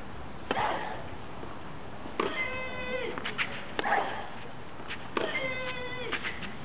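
Women's tennis rally on clay: twice a player gives a drawn-out, high-pitched shriek as she strikes the ball, each about half a second long. In between come shorter, duller bursts on the other player's shots and a few sharp racket clicks, at a steady back-and-forth rhythm.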